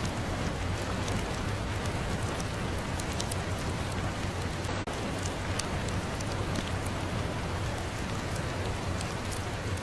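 Steady, even rain, with scattered sharp ticks and a low rumble beneath. A brief dropout cuts the sound for an instant about five seconds in.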